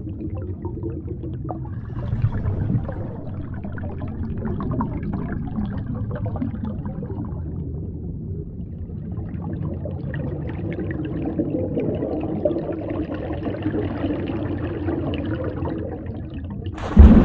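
Water heard through an underwater camera: a muffled low rush with fine crackling, like bubbles. A sudden loud burst of noise comes near the end.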